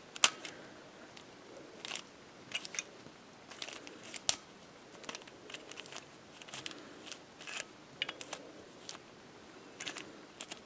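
A plastic 3x3x1 floppy cube being turned by hand: irregular clicks and clacks as its layers flip over. Two sharper clacks stand out, about a quarter second in and about four seconds in.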